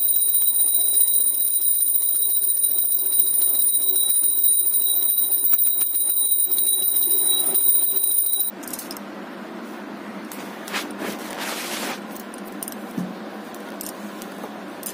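Brass puja hand bell rung continuously: a steady, high, shimmering ring that stops abruptly about eight and a half seconds in. A much quieter even hiss follows.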